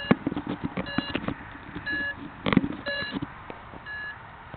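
Electronic beeper sounding a short beep of several tones about once a second, typical of a downed quadcopter after signal loss. Scattered knocks and rustles run underneath, the loudest just after the start and about halfway through.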